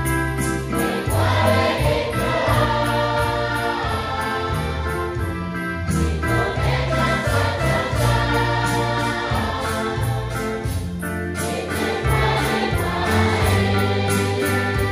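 A group of voices singing a Christian hymn together over instrumental backing, with steady bass notes and a regular high ticking beat.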